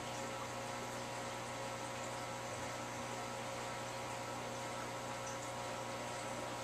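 Aquarium filter running: a steady electrical hum with a few fixed tones over an even hiss of moving water.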